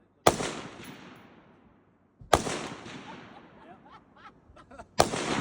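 Three single gunshots, about two to two and a half seconds apart, each followed by a long echoing decay.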